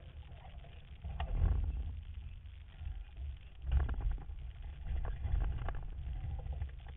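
Wind rumbling on the microphone aboard a small boat on the water, with a few short bursts of noise about one, four and five seconds in.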